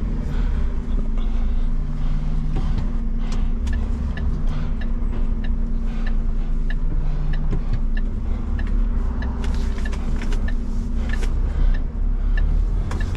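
Garbage truck's diesel engine running with a steady low drone heard inside the cab. From about three seconds in, a turn indicator ticks at an even pace, roughly once every two-thirds of a second, as the truck turns left.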